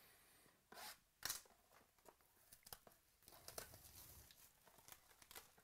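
A box of trading cards being opened by hand: quiet tearing and crinkling of cardboard and packaging, with two louder rips about a second in, then lighter rustling and clicks as the box is handled.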